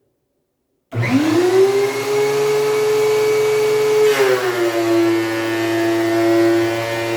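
DeWalt DW735 thickness planer switched on, its motor winding up to speed in under a second into a loud, steady whine. About four seconds in the pitch drops and holds lower, as the motor takes the load of a board feeding into the cutterhead.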